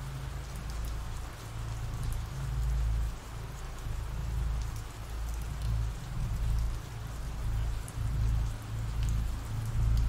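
Ambient rain recording: steady rain falling, with faint scattered drop ticks and a low rumble that swells and fades.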